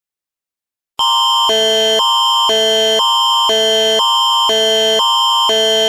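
Silence for about a second, then the Canadian Alerting Attention Signal starts: an electronic chord that switches every half second between a higher and a lower set of tones, over one steady high tone. It is the alarm that heads a tornado warning broadcast.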